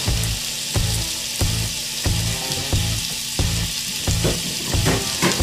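Chunks of chicken frying in hot grapeseed oil in a pan, a steady sizzle, over background music with a steady beat.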